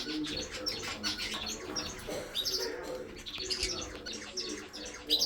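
A flock of parrots in a mixed aviary chirping and calling over one another in a dense, continuous chatter of short, high chirps.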